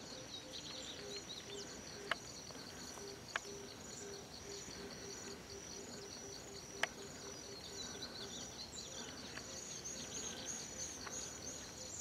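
Insects chirping steadily: a high, evenly repeated chirp a few times a second over a lower pulsing buzz, with a few faint sharp clicks.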